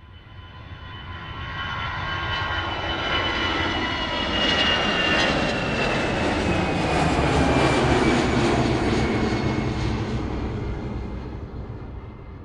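A jet airliner flying past: the engine noise swells up, is loudest about eight seconds in and fades away, with a high whine that falls slowly in pitch as it passes.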